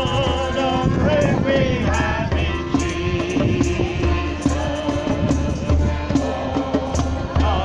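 A group of voices singing a worship song, with wind buffeting the microphone in gusts.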